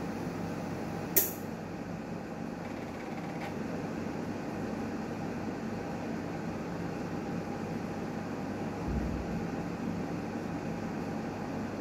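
Newmed Kronos S tabletop steam autoclave running with a steady mechanical hum. A sharp click comes about a second in, a fainter click a couple of seconds later, and a short low thump near the end.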